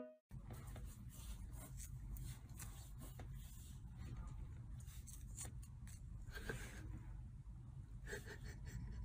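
Faint room noise: a low steady rumble with scattered light rustles and clicks, a little stronger about six and a half and eight seconds in.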